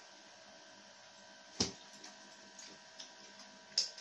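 Two sharp clicks about two seconds apart from eating at a table, such as forks or a sauce bottle knocking on plates, over a faint steady mains hum.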